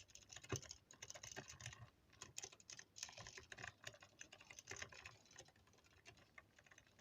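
Faint, irregular light clicks and taps, many in quick succession, rather like typing.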